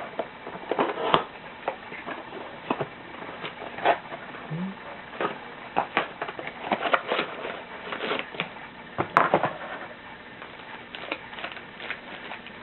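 Baseball card packaging being opened and handled: irregular crinkling, rustling and small clicks of cardboard and pack wrappers being torn open and cards being handled, with a few sharper snaps.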